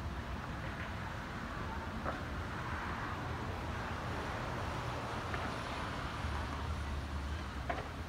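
Steady road traffic noise: cars driving past on a multi-lane road, swelling as one passes about three seconds in.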